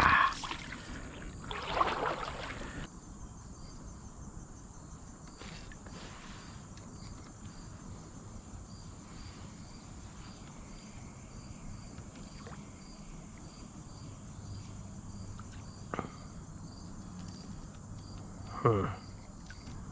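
Insects chirping in an even, repeating rhythm over a steady high drone, with two brief louder sounds, one about two seconds in and one near the end.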